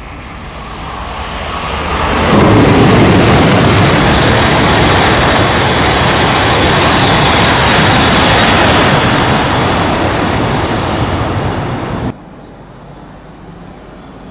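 E5-series Shinkansen coupled with an E6 passing through the station at high speed without stopping: a rising rush as it approaches, then a loud, steady roar of wind and wheels for about ten seconds. The roar cuts off suddenly near the end, leaving a faint background hum.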